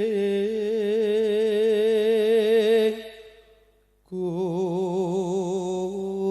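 Javanese langgam singing in campursari style: a singer holds a long note with wide vibrato, breaks off about three seconds in, then comes back on another long vibrato note about a second later.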